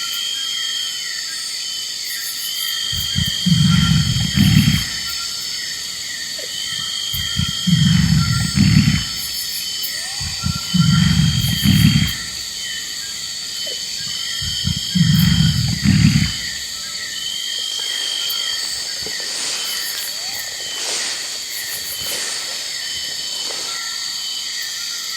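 A large animal giving four deep, rumbling calls, each about a second and a half long and a few seconds apart. Steady high-pitched chirping runs underneath.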